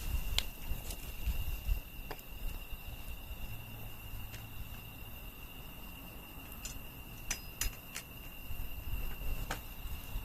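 Firewood burning in an open campfire, crackling with sharp irregular pops every second or two and a quick cluster of pops about three-quarters of the way through.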